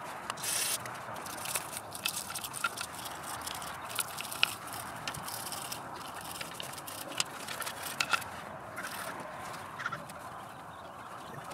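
A cast-metal IMRC intake runner plate being wiped with a rag and handled on cardboard: steady rubbing and scuffing, a short scrub just after the start, and many scattered light clicks and knocks as the part is moved.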